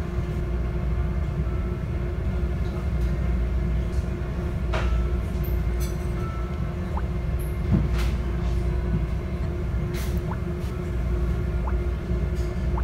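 Steady low rumble and hum of a car ferry's engines and machinery while underway, carried through the hull into the restaurant. A few light clicks sound over it.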